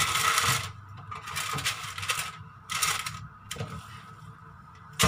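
Wooden spatula scraping sticky glutinous rice out of a stainless steel pot and pressing it onto crinkling baking paper. About five short scraping, rustling strokes, then it goes quieter near the end.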